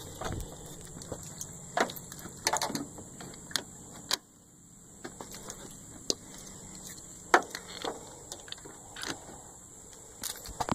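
Scattered sharp clicks, knocks and rattles of handling noise over a low steady hum, which drops away briefly about four seconds in.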